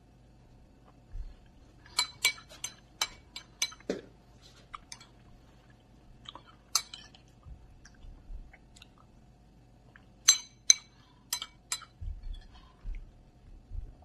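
Metal spoon clinking against a bowl while scooping food: two quick runs of ringing taps, a couple of seconds in and again after about ten seconds, with a single clink between. Quiet chewing fills the gaps.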